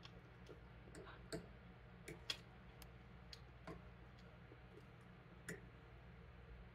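Quiet eating: a dozen or so faint, irregular clicks and taps from a fork on a plate and from chewing, over a low steady hum.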